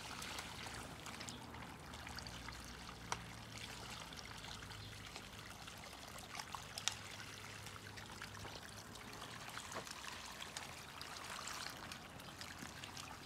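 Water pouring from a garden hose into a soil furrow, a steady trickling run of water. A few sharp clicks cut through it, the sharpest about seven seconds in.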